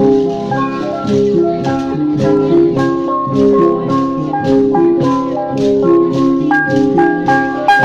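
Vietnamese Central Highlands cồng chiêng gong ensemble: a row of flat gongs and a bossed gong, hung from bamboo poles and struck with mallets, playing an interlocking rhythm of overlapping ringing tones at several strikes a second.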